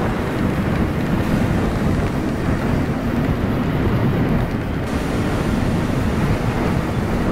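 Steady wind rush over the helmet-mounted microphone at riding speed, with the engine of a 2005 Kawasaki ZX-6R with a Remus full exhaust running evenly underneath.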